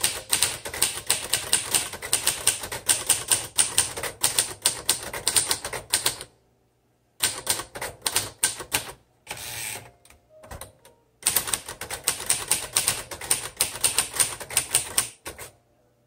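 1957 Royal Aristocrat manual typewriter being typed on quickly: rapid runs of typebar strikes against the platen, with a pause of about a second some six seconds in and sparser sounds in the middle before another fast run.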